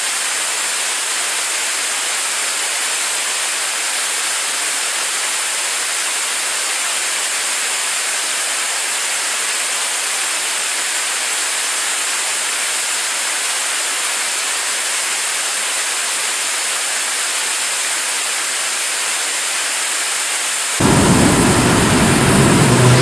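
75-ton-class liquid-fuel rocket engine firing on a test stand: a loud, steady rushing noise of exhaust, even and without rhythm and with little deep rumble. Near the end it changes abruptly, growing louder with a deep rumble and a low hum.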